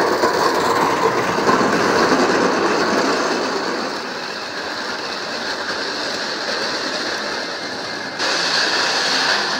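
1:32 scale live-steam model of an NSWGR C38-class locomotive hauling its coaches along garden track, a steady rattle of wheels on the rails. It drops a little in level about four seconds in and comes up again near the end.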